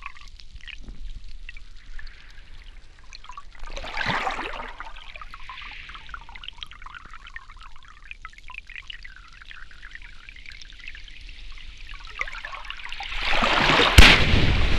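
Water trickling and lapping in shallow sea, heard through a field-recording microphone. About four seconds in there is a brief swell. Near the end a louder rush of water noise builds up, with one sharp knock in it.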